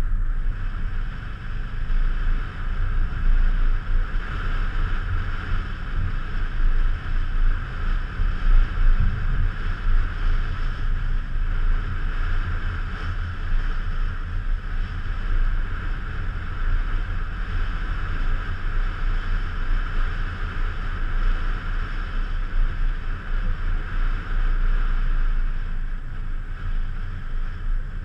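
A car driving along at a steady pace: a continuous rumble of engine and tyres on the road, its level wavering, with wind buffeting the microphone.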